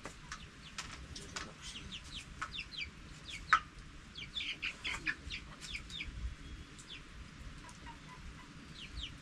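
Chickens calling, many short, high, falling chirps one after another, with one sharp knock about three and a half seconds in.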